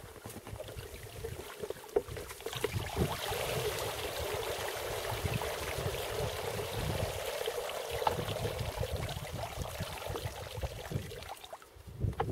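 Water trickling and splashing in an ice hole as a wet fishing setline is pulled up out of it, with a few small knocks, over a steady rumble of wind on the microphone.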